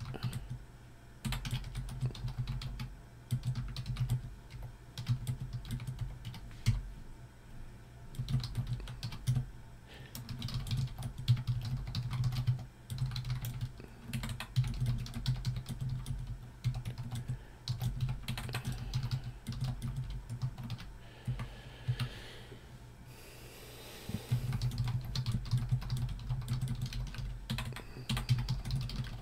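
Typing on a computer keyboard: a rapid, irregular run of keystrokes over a steady low hum. The typing stops for about two seconds roughly three-quarters of the way through, then resumes.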